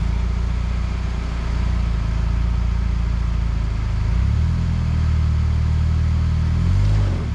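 Car engine revving as the driver tries to drive a mud-stuck front wheel out of a soft roadside verge. The engine note rises about four seconds in, holds, then drops back near the end.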